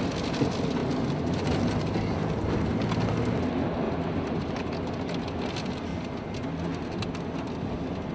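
Steady roar of wind and rain from a tornado passing close by, heard from inside a vehicle, with scattered sharp ticks of rain and debris striking it.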